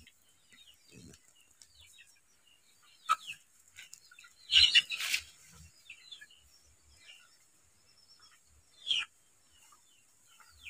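A few brief, scattered animal calls with quiet between them, the loudest about halfway through.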